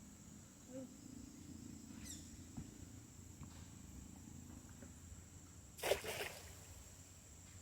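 Steady high-pitched insect drone, crickets in the countryside, with a short noisy burst about six seconds in.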